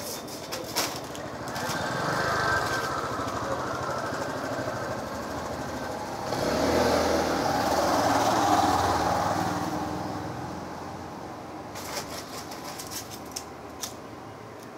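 A motor vehicle's engine passing on a nearby road: it builds up, is loudest about halfway through, then fades away.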